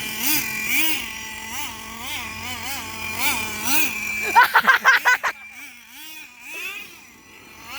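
Small electric motor of a toy RC car whining, its pitch rising and falling in repeated quick throttle blips, with a louder, choppier stretch about halfway through.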